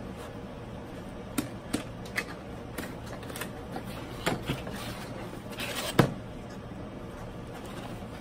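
Cardboard box being opened by hand: scattered light taps and clicks as the flaps are handled, with a short rustle ending in a sharp snap about six seconds in.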